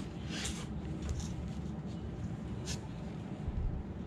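Cotton-gloved hands rubbing and scraping against a broken fired-clay jar as its loose sherds are shifted into place: a few brief scratchy rubs, about three, over a steady low hum.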